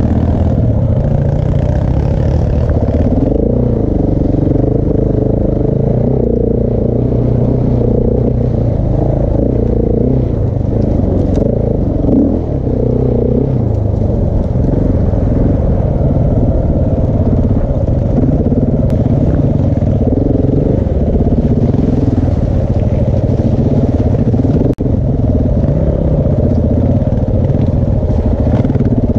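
KTM 690 Enduro R's single-cylinder four-stroke engine, breathing through a Wings exhaust with a large dB killer, running continuously and revving up and down as the bike is ridden along a trail.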